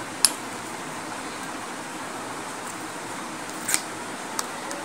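A spoon scooping soaked, ground urad dal paste into a glass bowl, with a sharp click of the spoon on the glass just after the start and a few lighter clicks near the end, over a steady background hiss.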